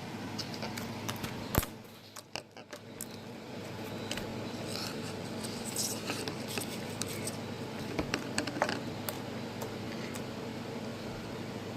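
Homemade slime being handled and squeezed: scattered small clicks and squishes, with one sharper click about one and a half seconds in, over a steady background hiss.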